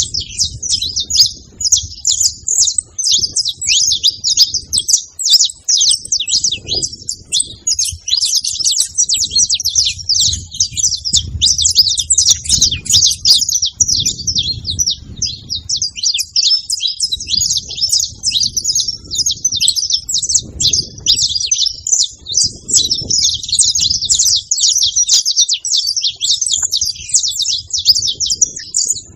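A flock of saffron finches (canário-da-terra) calling and singing together, a dense, unbroken chatter of high, rapid chirps.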